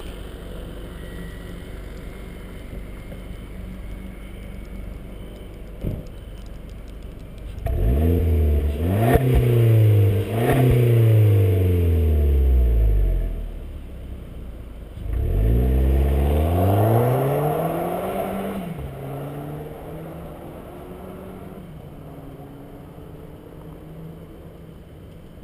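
VW Golf 1.4 TSI turbocharged four-cylinder petrol engine, heard through an aftermarket Jhen Feng exhaust, idling steadily. It is then revved twice, about a third and about two thirds of the way in, each rev climbing and falling back to idle.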